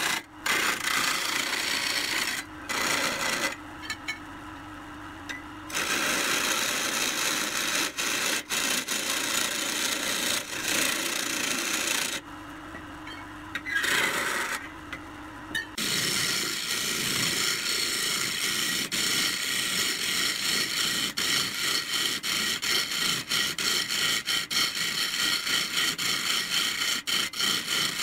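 A wood lathe spinning a pine vase blank while a hand-held turning tool, and later a handful of wood shavings, rubs against the turning wood: a steady scraping rub. The rub drops out twice for a few seconds, leaving only the lathe running. From about halfway through it takes on a fast, fluttering texture.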